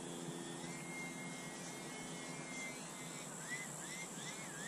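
Faint high whine of the UMX Turbo Timber's small electric motor and propeller in flight. It holds a steady pitch for a couple of seconds, then rises and falls in pitch several times near the end.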